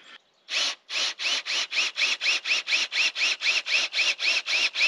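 Cordless drill boring into a wooden log, its motor whine pulsing up and down about four to five times a second, starting about half a second in.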